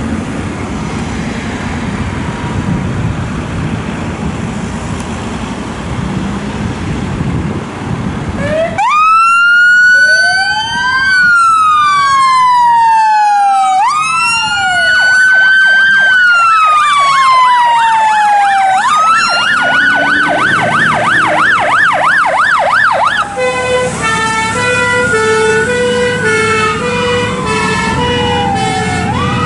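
Fire engines' diesel engines running as they pull out, then their sirens start about nine seconds in with a slow rising-and-falling wail. This changes to a fast yelp, and near the end two-tone horns alternate high and low over a second wailing siren.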